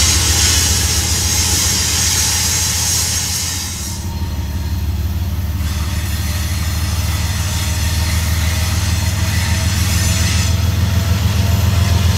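Freight train noise: the rear of a train with its rear diesel locomotive moving away, with loud rail hiss, then, after a sudden change about four seconds in, a steady low diesel rumble growing louder as a GE ES44DC-led freight approaches.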